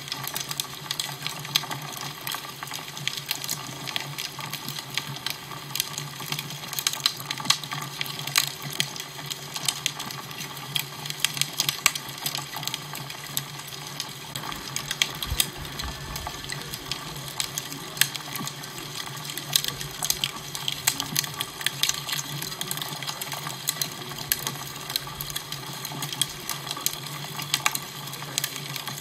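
Fire crackling: irregular sharp pops and snaps, several a second, over a steady hiss, with a low steady hum underneath.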